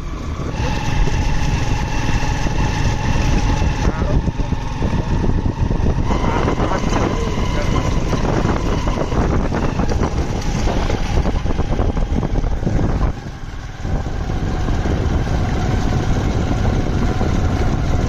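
A motor vehicle's engine running as it drives along a rough dirt track, with a steady rumble and engine whine. Its note changes about six seconds in, and there is a brief lull about thirteen seconds in.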